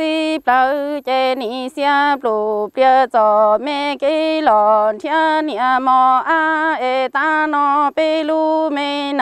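A solo voice singing Hmong kwv txhiaj (chanted sung poetry). Each syllable is held on a steady note with a wavering vibrato, with short breaks between syllables.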